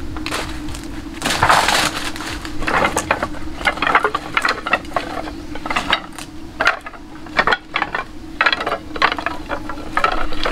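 Irregular crunching, snapping and knocking from hands-on work with building materials, the strokes coming in uneven bursts, over a steady low hum.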